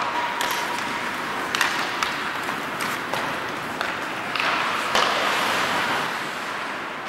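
Ice hockey rink sounds during play: a steady wash of crowd and skating noise with several sharp clacks of sticks and puck scattered through.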